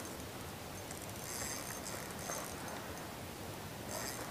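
Ultralight spinning reel being cranked in short spells, a faint high whir from its gears as a hooked fish is reeled in, over a low steady hiss of wind and water.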